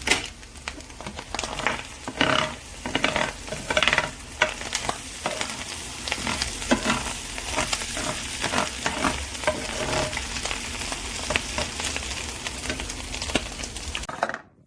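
Food frying in a nonstick grill pan: a steady sizzle thick with irregular crackles, and the clicks and scrapes of a utensil stirring. It cuts off abruptly near the end.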